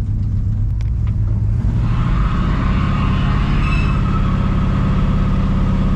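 1982 Chevrolet C10 pickup's engine running through its new mufflers under acceleration, the exhaust note stepping up in pitch and level about two seconds in and then holding steady.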